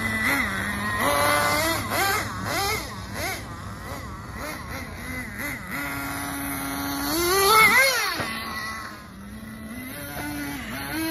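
XTM X-Cellerator RC monster truck's small two-stroke glow-fuel engine revving up and down repeatedly as the truck is driven. About six seconds in it holds a steady note, then climbs to its loudest, highest rev a second and a half later and drops back to a low steady idle.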